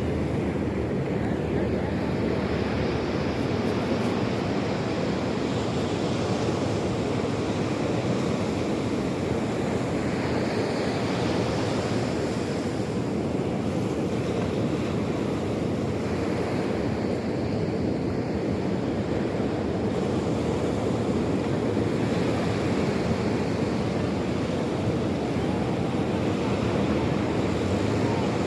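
Sea surf: waves breaking and washing onto the shore in a continuous rush, swelling and easing every few seconds.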